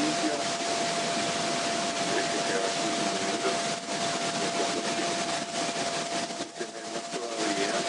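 Steady hiss of water boiling in a glass pot over a homemade drink-can alcohol stove, under a steady high-pitched whine.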